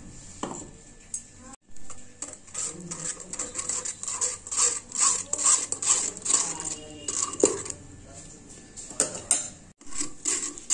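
A spoon scraping and rubbing tomato purée through a stainless steel mesh strainer, a rapid series of short, irregular strokes of metal on wire mesh.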